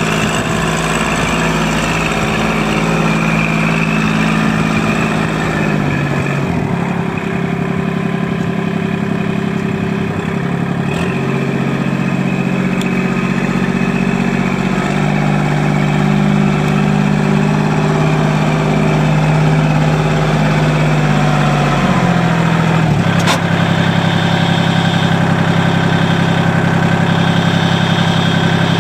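Kubota L2501DT compact tractor's 24.8 hp three-cylinder diesel running as it drives about, its engine note stepping up and down a few times with changes in engine speed. A sharp click sounds about 11 s in, and another about 23 s in, where the engine note changes abruptly and then holds steady.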